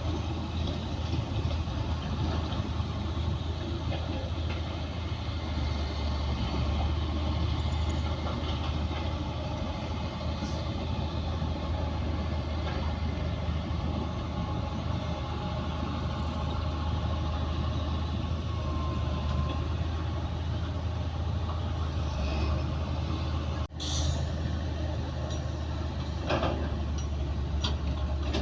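Bulldozer's diesel engine running steadily under work, with a strong low hum. The sound breaks off for an instant about three-quarters of the way through, and a few sharp clicks come near the end.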